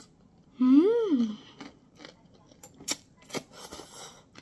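A short vocal 'ooh' that rises and then falls in pitch about half a second in, the loudest sound here. It is followed by noodles being slurped and a few sharp clicks of metal chopsticks against a bowl.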